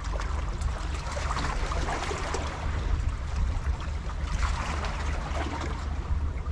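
Sea water washing and splashing, swelling twice, over a steady low rumble.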